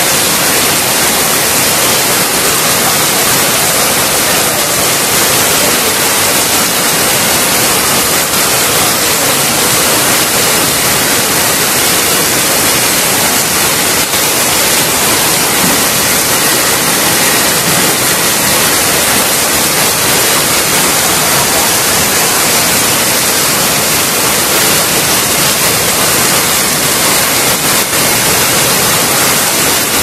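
Waterfall in full flow, the falling water making a loud, steady rushing noise.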